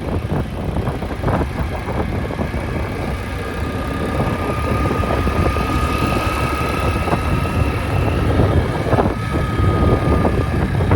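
Hero Splendor motorcycle's single-cylinder engine running under way, with road and wind noise. A steady high tone sounds for several seconds in the middle.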